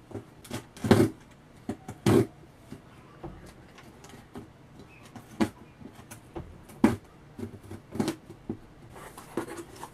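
Scissors cutting open a cardboard box: irregular snips, scrapes and knocks of the blades and cardboard, the loudest about one and two seconds in and again near seven seconds.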